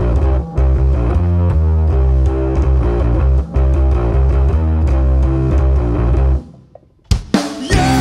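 Rock band playing live: an electric bass riff with strong low notes repeats, then stops dead about six and a half seconds in. After a brief near-silent gap, a sharp hit brings the band back in with a held note.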